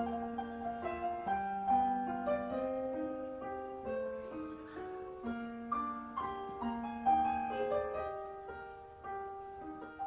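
Background solo piano music: a slow melody of ringing notes that overlap one another.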